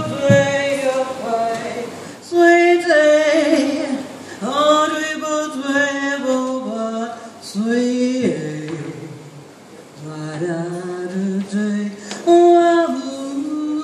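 A woman singing live into a microphone, unaccompanied or nearly so: long held notes that slide up and down in pitch, in several phrases with short breaks between them.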